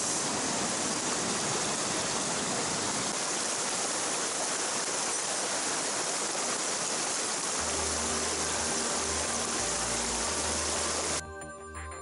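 Steady rush of a mountain stream's flowing water. Soft background music with low notes comes in underneath about two-thirds of the way through, and near the end the water sound cuts off suddenly, leaving only the music.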